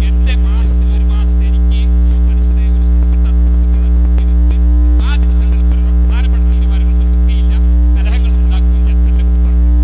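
Loud, steady electrical mains hum: a low buzz with a stack of steady overtones. A man's voice is faintly heard underneath it now and then.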